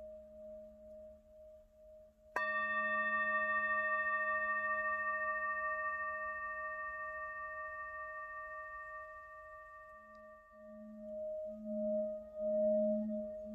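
Meditation singing bowls: a low hum and a wavering mid tone, then a bowl struck a couple of seconds in that rings with several overtones and fades slowly over about eight seconds. The low tones swell and pulse near the end.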